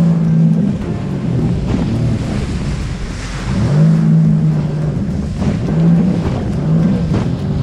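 Sea-Doo jet ski's engine running under way at speed, its pitch dipping and rising several times with the throttle, over the rush of water off the hull.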